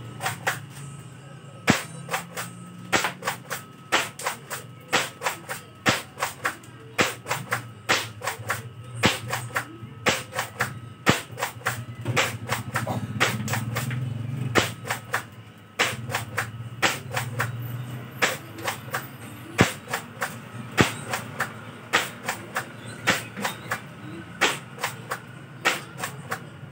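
Spring-powered airsoft pump shotgun (M690, a Mossberg 590A1 replica) being pumped and fired over and over: sharp plastic-and-metal clacks of the slide and the spring release, about two a second.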